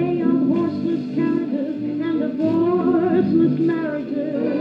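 Silvertone portable record player playing a record through its built-in speaker: a song with a singer over instrumental backing.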